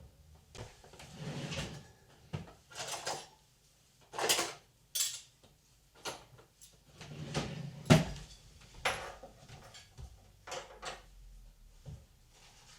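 Household handling sounds: a string of irregular knocks, clunks and rustles, like drawers, cupboards or kitchenware being moved, with the sharpest knock about eight seconds in.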